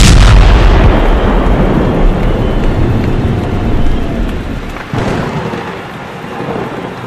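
Explosion sound effect: a sudden loud blast that fades slowly over several seconds, with a second, weaker surge about five seconds in.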